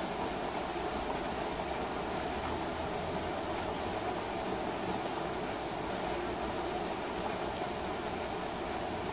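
Steady rain falling, an even rushing hiss with no thunderclap.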